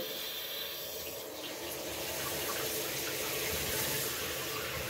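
Toilet tank refilling through its fill valve after the water supply has been turned back on: a steady rush of running water, growing slightly louder partway through.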